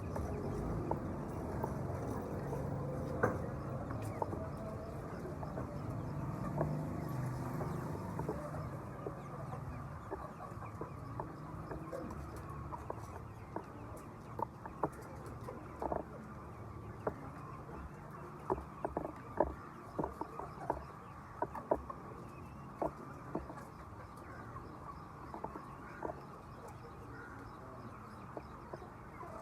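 A flock of chickens clucking and murmuring, with many short, sharp taps or clicks through the second half.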